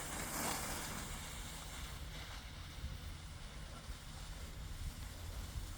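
Wind rumbling on the microphone, steady and low throughout, with a brief hiss in the first second.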